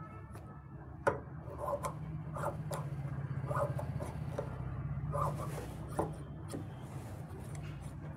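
Tailor's scissors snipping through cloth in a series of short, uneven cuts, trimming excess fabric from a sewn collar seam, over a steady low hum.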